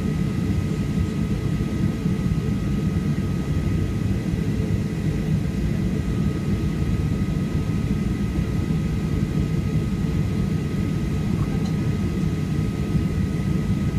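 Steady cabin noise inside a Boeing 737-800 on the ground before take-off: a low rumble from its CFM56 engines at idle, with two faint steady whining tones above it.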